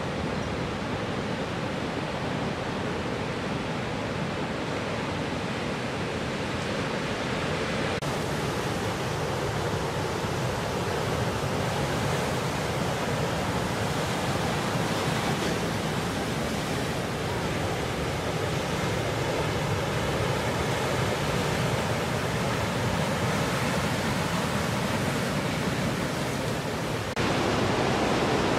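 Ocean surf breaking and washing over rocks: a steady, unbroken wash of noise that shifts abruptly about 8 s in and gets louder near the end.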